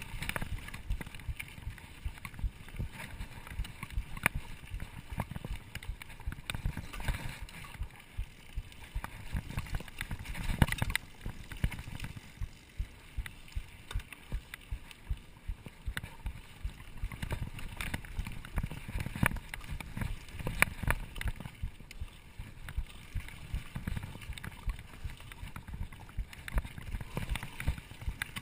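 Mountain bike rattling and knocking over a bumpy dirt trail: an irregular clatter of the bike's parts over the bumps with the tyres rumbling on the ground, and one harder knock near the middle.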